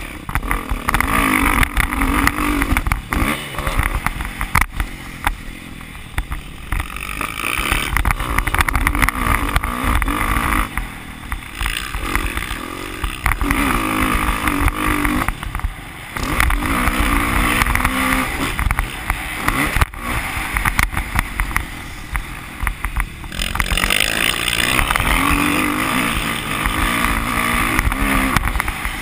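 Dirt bike engine being ridden hard on a motocross track, revving up through the throttle and dropping back every few seconds as the rider shifts and backs off for the terrain.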